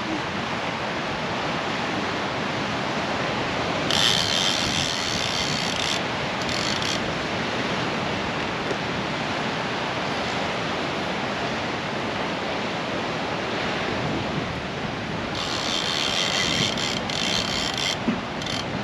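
Steady rushing of ocean surf mixed with wind on the microphone. Twice, about four seconds in and again from about fifteen to eighteen seconds, a high buzzing hiss rises above it.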